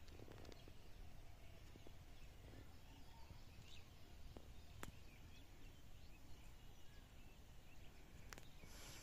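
Faint rural outdoor ambience: birds calling now and then in the distance over a low steady rumble, with two sharp clicks, about five and eight seconds in.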